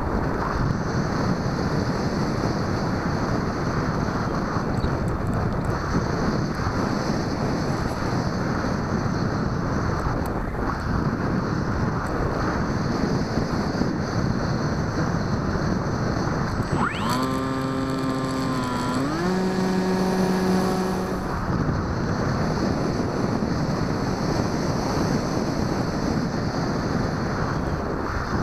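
Steady rushing of wind over the onboard camera microphone of a Bixler 2 RC model plane in flight, mixed with the noise of its electric motor and propeller. About two-thirds of the way through, a brief pitched tone sweeps sharply upward, then holds and steps in pitch for a few seconds before stopping.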